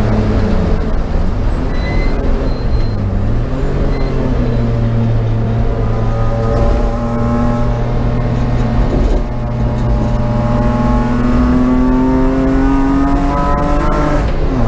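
Race car engine under racing load: the revs dip and recover twice in the first few seconds, hold, then climb steadily under hard acceleration. A quick gear change near the end drops the pitch sharply.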